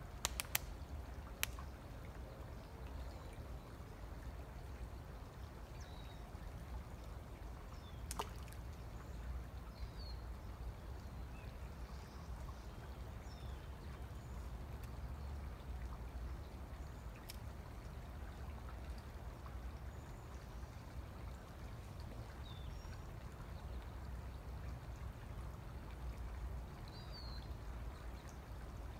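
Steady wash of trickling creek water over a low rumble, with a few faint, high, short bird chirps scattered through and a handful of sharp clicks, the clearest about eight seconds in.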